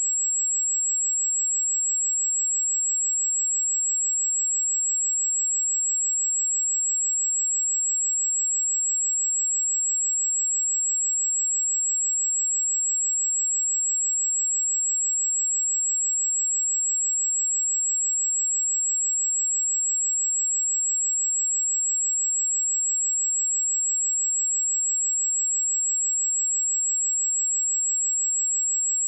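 A pure 7647 Hz sine-wave test tone, one steady high-pitched whistle held at constant pitch and level.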